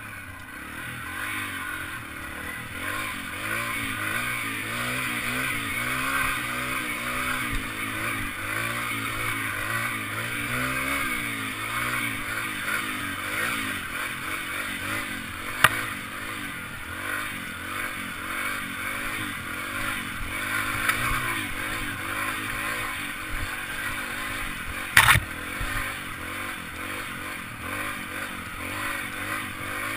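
Single-cylinder four-stroke engine of a Yamaha TT-R trail bike running under way, its pitch rising and falling with the throttle. Two sharp knocks cut through, one a little past halfway and a louder one near the end.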